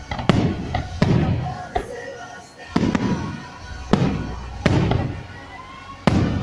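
Aerial firework shells bursting overhead: about six loud bangs, roughly a second apart, each followed by a rolling rumble, with one smaller pop among them.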